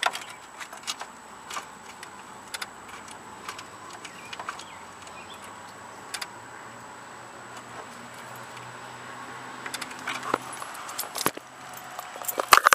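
A bunch of keys jangling and clicking in short, scattered bursts as a key is worked into a lawn tractor's ignition switch. The clicks come thicker near the end.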